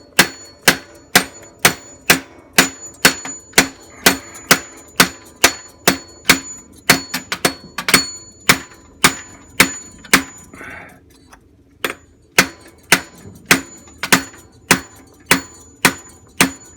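A hammer tapping a 1/8 inch pin punch to drive a pin out of a jukebox carousel drive piece: sharp metallic taps at about two a second, with a faint ring. There is a brief pause about two-thirds through, then the tapping resumes.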